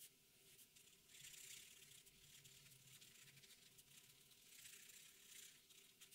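Faint scratching of a black marker pen on paper as an area is filled in with short strokes. It grows louder for a stretch about a second in and again around four and a half seconds in.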